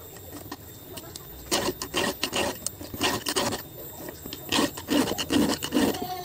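Hand round file stroking across chainsaw chain cutters: a run of short scraping file strokes, two to three a second in small groups, starting about a second and a half in. The file is sharpening the teeth of a dulled chain.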